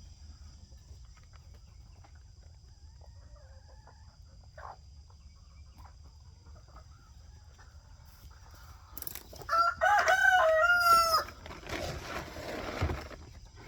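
A rooster crows once, loud, about nine and a half seconds in, after a long quiet stretch of faint ticks. A scratchy rustling follows for a second or so.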